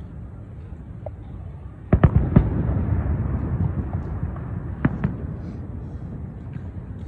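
Fireworks going off: a quick cluster of loud bangs about two seconds in, trailing into crackling and rumble, then another pair of sharp bangs near the five-second mark and a few smaller cracks.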